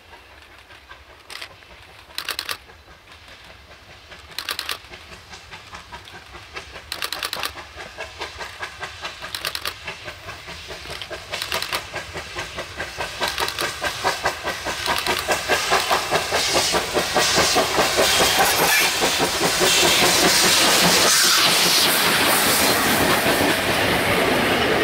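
South African Railways steam locomotive approaching with its train: a fast rhythmic beat that grows steadily louder for about twenty seconds, then holds. Short sharp bursts come about every two seconds in the first half.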